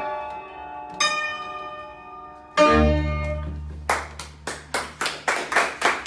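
Music played on plucked strings ends in a loud final chord over a deep bass note about two and a half seconds in. After that comes steady rhythmic clapping in time, about four claps a second.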